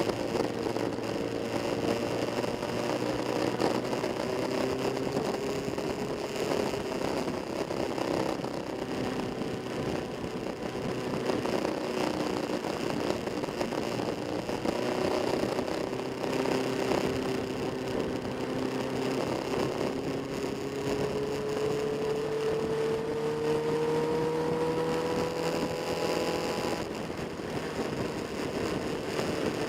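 Motorcycle engine running steadily. Its pitch climbs slowly about two-thirds of the way through, then drops near the end.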